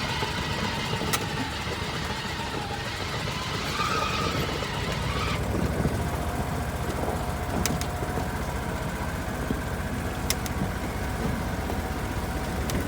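Engine of a Gator utility vehicle running steadily as it drives along, with a low rumble and a few sharp clicks or rattles.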